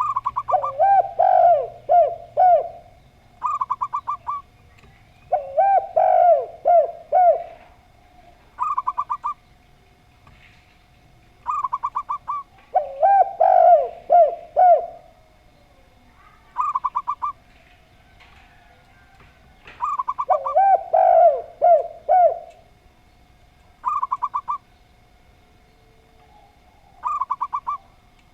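Zebra dove (perkutut) and spotted dove (tekukur) cooing in turn. Short, quick runs of higher staccato coos recur every few seconds. Four times, they are answered by longer, lower rolling groups of coos, with a faint steady tone underneath.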